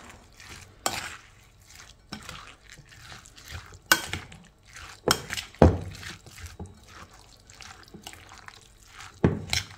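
A metal fork stirring shredded cabbage and grated carrot into a thick mayonnaise dressing in a glass bowl: soft, wet squelching and rustling, with a few sharp clinks of the fork against the glass, the loudest about halfway through.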